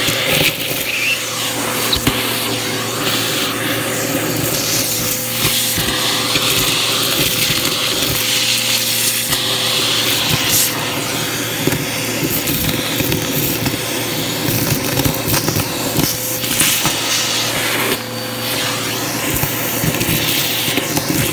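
Vacuum cleaner running with a steady motor hum while its hose and crevice tool suck up a pile of dust, lint and small hard debris, which crackles and rattles as it goes up the hose. The sound dips briefly near the end.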